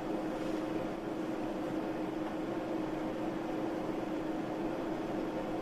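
Steady hiss with a faint, even hum: the room tone of a small room picked up by a close microphone, with no voice or accompaniment.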